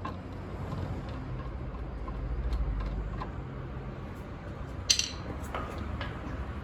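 Workshop repair sounds: small clicks of tools or metal parts being handled over a steady low hum, with one sharp metallic clink a little after the middle.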